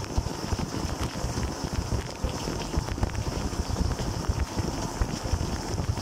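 Water jets from the spray arm of a running dishwasher splashing against a camera and the dish racks inside the machine: a steady, noisy spray with an uneven low rumble.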